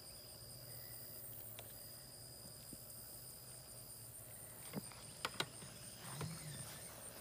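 Quiet outdoor background with a steady faint high tone over a low hum, broken by a few sharp clicks about five seconds in.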